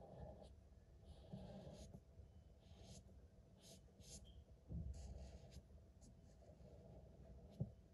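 Felt-tip marker scratching faintly across paper in a series of short, uneven colouring strokes, with a soft thud about five seconds in and a sharp knock near the end.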